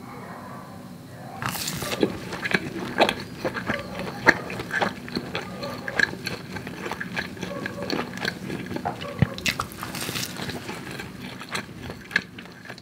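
Someone biting into a slice of pan-fried French toast and chewing it, with a crisp bite about a second and a half in and another about ten seconds in, and irregular crackles and mouth clicks between.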